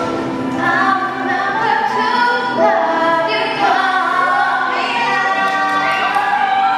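Female a cappella group singing: a lead voice over several voices holding harmony notes.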